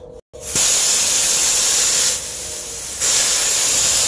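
Pressurised nitrogen test charge hissing out of a refrigeration system through an opened gauge-manifold valve, venting the 190 psi pressure test before evacuation. The hiss starts suddenly, eases off about two seconds in and comes back up a second later.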